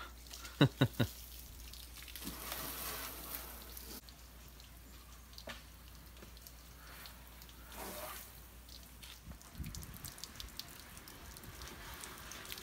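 Garden hose water spraying and splashing on a car and wet pavement, a low uneven hiss with scattered drips. Near the start, three quick, sharp taps.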